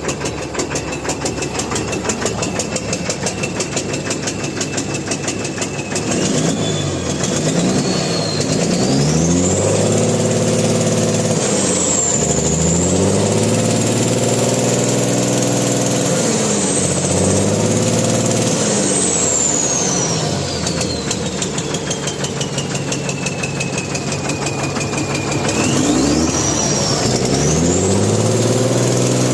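Mahindra Blazo BS4 truck's diesel engine idling, then revved up about six seconds in and held high. The revs fall back and are raised again near the end. A high whistle rises and falls with the revs. The engine is the one flagged for an abnormal sound and black smoke.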